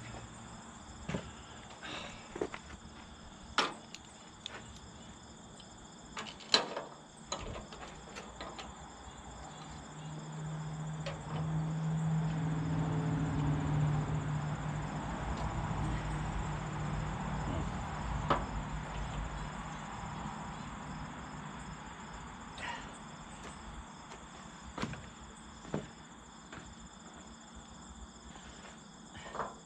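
Scattered knocks and clanks from work on a truck chassis, over a steady chirring of crickets. Midway a low hum swells up and fades again over about ten seconds.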